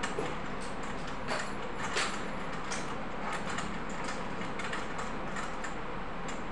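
Curtain hooks clicking and scraping against a curtain rod as a curtain is unhooked, a few separate clicks over a steady background noise.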